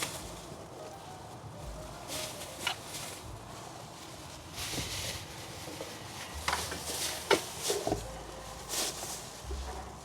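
Scattered rustling and a few sharp knocks and clicks, the loudest about seven seconds in, with gusts of wind buffeting the microphone.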